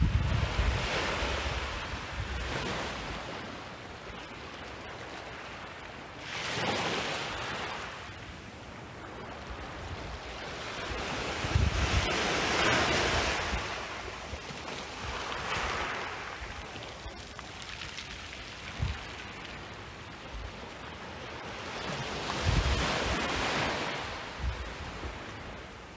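Small, gentle waves on calm water breaking and washing up a sand and pebble shore, swelling and fading every few seconds.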